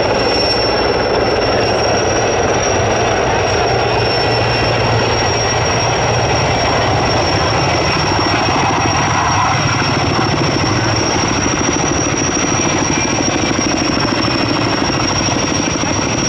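Sikorsky S-64 Air-Crane heavy-lift helicopter hovering low while it draws water up its snorkel hose to refill. The turbines give a steady high-pitched whine over the rapid beat of the rotor.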